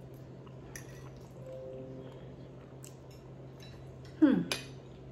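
Metal fork clinking lightly on a ceramic plate while a person eats and chews, then about four seconds in a short, loud voice sound falling in pitch.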